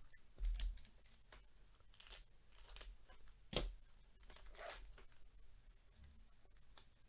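Foil wrapper of a Topps Chrome football card pack tearing and crinkling as it is peeled open and the cards are pulled out, in short scattered crackles with a soft thump about half a second in.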